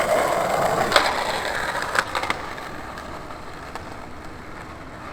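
Skateboard grinding: a long, steady metal scrape of the trucks, with sharp clacks about one and two seconds in, then fainter wheel rolling that fades.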